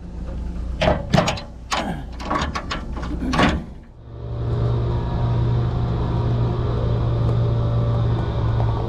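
A burst of several sharp knocks and hisses with falling pitch during the first few seconds. After about four seconds a truck's diesel engine runs with a steady low hum.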